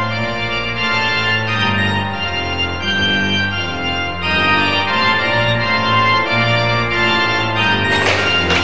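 Background organ music: sustained chords that change about once a second. Bright struck accents come in near the end.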